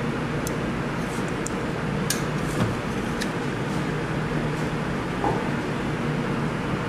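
Several light clinks of a metal spoon against a saucepan as a braised short rib is lifted out and set on a plate, over a steady background hum.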